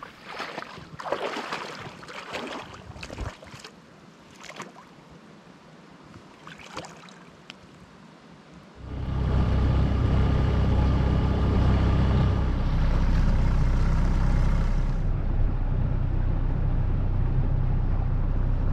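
A few scattered knocks and rustles of handling on a boat, then about nine seconds in a boat motor is suddenly running, a loud steady drone that continues.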